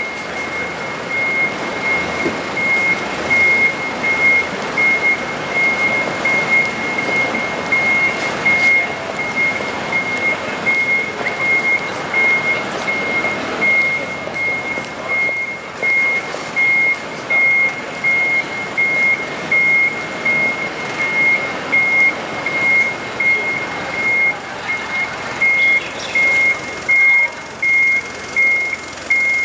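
Garbage truck's reversing alarm beeping steadily at one high pitch, just over once a second, over the truck's engine running.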